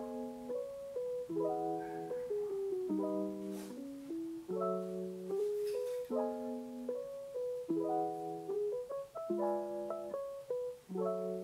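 Light instrumental background music: a gentle tune over chords that change about every second and a half.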